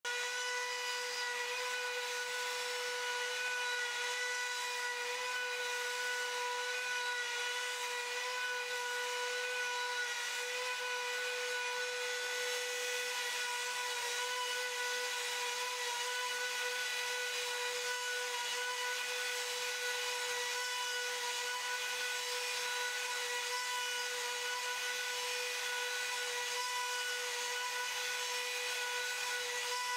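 Makita trim router on a CNC gantry, spinning at 30,000 rpm and carving HDMR board with a ballnose bit at full 14 mm depth. It gives a steady, unchanging high whine with a hiss of cutting underneath.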